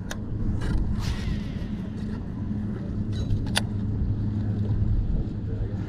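Boat motor running steadily with a low, even hum, with a few sharp clicks over it, the clearest about three and a half seconds in.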